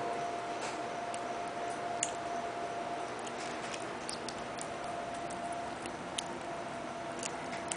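Newborn hairless Sphynx kittens suckling, making small irregular clicks, over a steady faint hum and hiss.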